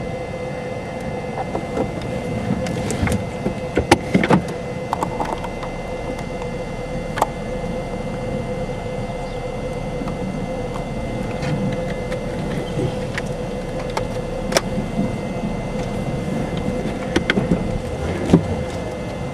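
Steady wind rumble with a faint constant hum underneath, broken by a few sharp clicks or knocks, the loudest around four seconds in and again near the end.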